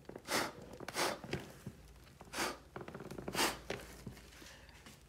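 A person's breathing close to the microphone: four short, breathy puffs of air at uneven intervals.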